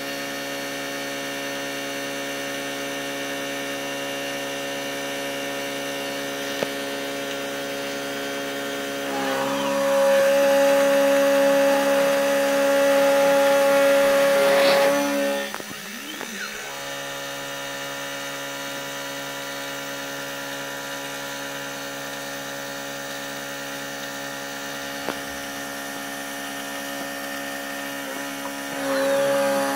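PM-25MV benchtop milling machine converted to CNC, its spindle running with a steady whine while an end mill cuts aluminium soft jaws. The cut gets louder for about six seconds starting roughly a third of the way in, then louder again just before the end.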